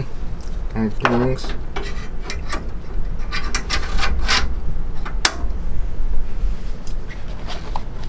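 Handling noises: scattered clicks, taps and rubbing of hard objects being moved about, over a steady low hum.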